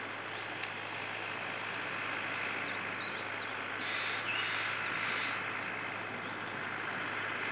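International 743XL tractor's diesel engine running steadily under load as it pulls a harrow across a field, heard from a distance.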